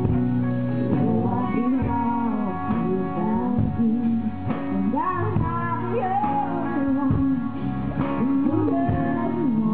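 Live country music: a woman singing into a microphone over a band with guitar.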